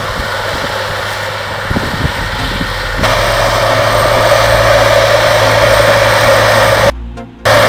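Tracked tractor's diesel engine running, a steady machine noise that gets abruptly louder about three seconds in, then cuts out suddenly near the end and briefly comes back.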